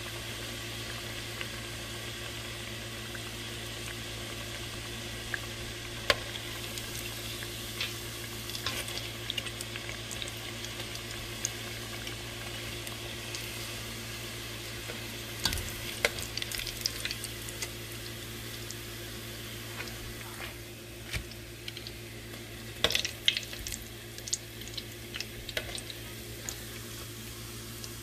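Flaming hot Cheeto-coated corn dogs deep-frying in oil in a stainless steel pot: a steady sizzle. Metal tongs click and tap against the pot now and then, most often in the last third, as the sizzle eases a little.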